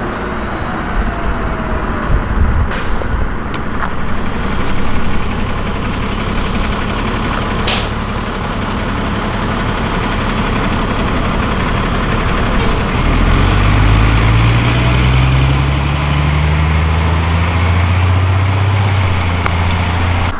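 Steady road traffic passing on a multi-lane street, with a heavy vehicle's engine rising slowly in pitch as it accelerates through the second half. Two sharp clicks come in the first eight seconds.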